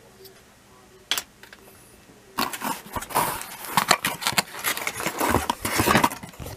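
Cardboard box and plastic toy-train packaging being handled and unpacked. A single sharp click comes about a second in, then from about two seconds in a dense, irregular run of rustles, scrapes and knocks.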